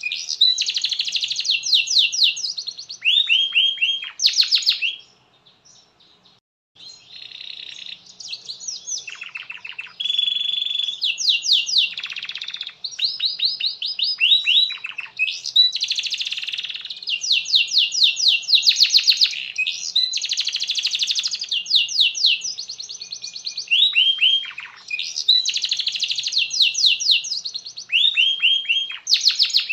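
Domestic canary singing a long, loud song of fast rolling trills and quick falling notes, with one short pause about five seconds in.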